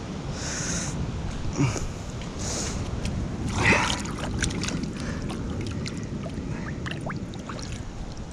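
Shallow seawater lapping and trickling over lava rock in a tide pool, over a steady low rumble. A few small splashes and clicks break in, with the loudest about three and a half seconds in.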